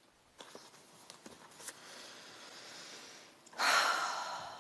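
A woman's audible breathing: a soft breath in, then a louder sigh-like breath out about three and a half seconds in that fades away, with a few faint clicks before it.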